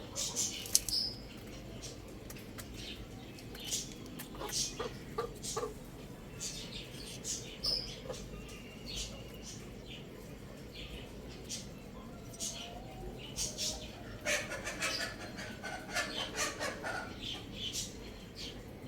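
Young chickens chirping: short, high-pitched chirps come at irregular intervals, with a dense run of chirping about two-thirds of the way through. There is one sharp click just under a second in.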